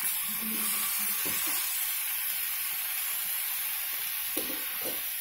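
Soaked basmati rice and vegetables sizzling steadily in hot oil in an aluminium pressure cooker as they are stirred slowly with a ladle.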